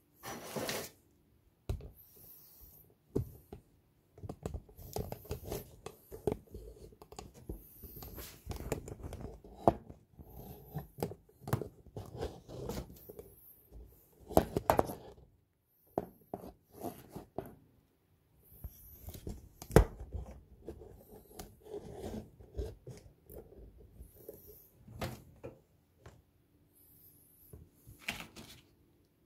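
Hands at work on food preparation, making irregular clicks, scrapes and tearing sounds, with a few sharper knocks scattered through.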